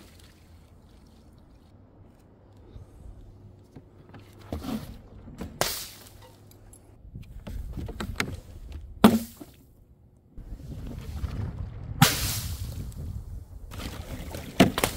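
Objects being dropped and smashed on a hard surface: scattered knocks and clinks, one loud crash about nine seconds in that rings briefly, then a longer noisy rush of debris about twelve seconds in and a quick run of clinks near the end.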